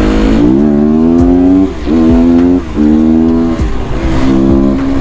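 Motorcycle engine pulling hard, its pitch rising under throttle, with two brief drops about one and a half and two and a half seconds in as it shifts up through the gears.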